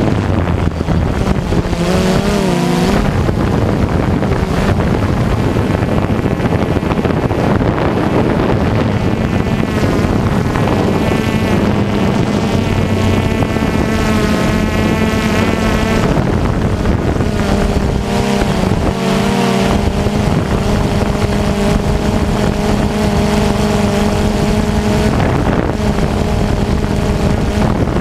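DJI Phantom Vision 2+ quadcopter's four electric motors and propellers humming steadily, heard close up from the drone's own camera, with wind buffeting the microphone. The pitch wavers a few times as the motors change speed, most clearly about halfway through.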